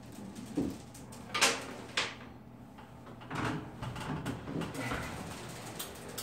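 Old wooden upper kitchen cabinet being slid out of a loft, scraping along the edge and knocking against the framing: two sharp knocks about a second and a half and two seconds in, then lighter knocks and scrapes.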